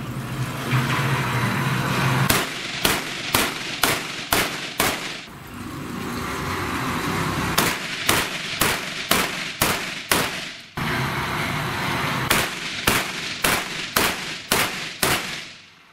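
Pistol shots from a compensated race pistol with a red-dot sight: three strings of six sharp shots, each shot about half a second apart.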